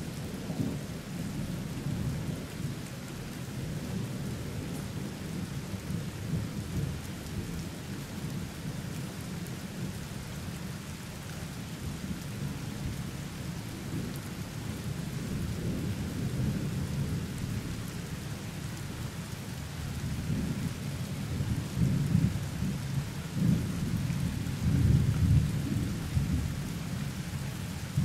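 Thunder rumbling on and off over steady rain from a thunderstorm, the rumble growing louder in the last several seconds.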